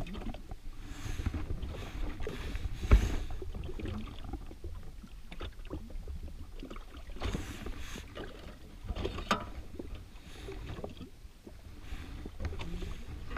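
Scattered clicks and knocks from gear being handled on a jet ski's rear fishing rack, over a low steady rumble; one sharper knock comes about three seconds in.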